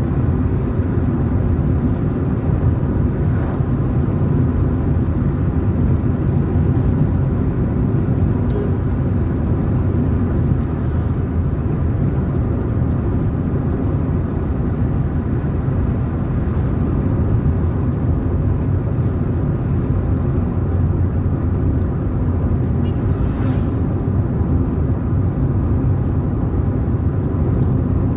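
Car driving along a road: steady engine and tyre rumble with no marked changes.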